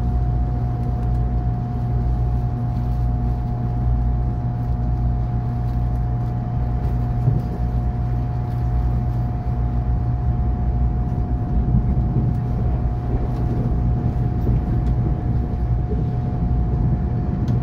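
Inside the cabin of a moving electric multiple-unit train: a steady low rumble of wheels running on the rails, with a constant hum held at one pitch above it.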